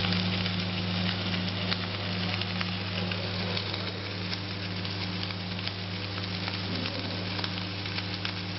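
Electric arc welding on a beam-welding gantry: the arc gives a steady crackling sizzle with frequent sharp pops, over a steady low electrical hum.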